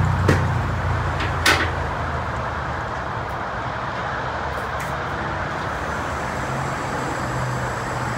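Two-post vehicle lift lowering a car: its low motor hum stops at the start, then two sharp clicks about a second apart, the second the louder, as the car starts down.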